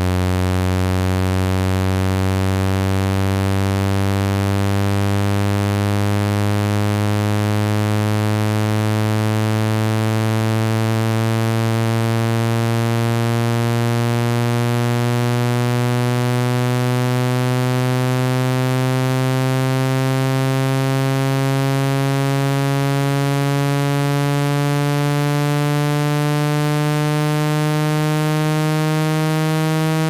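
Synthetic water-eject cleaning tone, a steady low buzz rich in overtones that rises slowly in pitch. It is meant to be played at full volume through a phone's speaker so the vibration pushes water droplets out.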